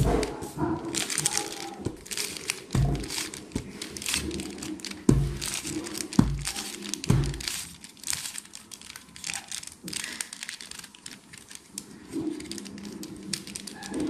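Plastic 3x3 Rubik's cube being turned by hand, its layers clicking and clacking in a fast, uneven run of turns, with a few dull knocks from handling along the way.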